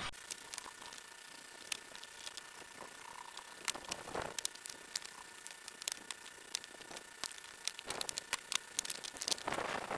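Hand brush scrubbing the dust and loose char off a charred shou sugi ban wood board, heard as light scratchy strokes and clicks. They come only now and then at first and grow frequent over the last couple of seconds.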